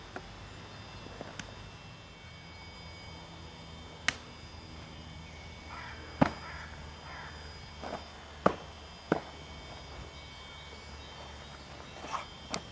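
A martial artist's strikes and stamping steps during a bajiquan-style form: a handful of sharp slaps and thuds, irregularly spaced a second or two apart.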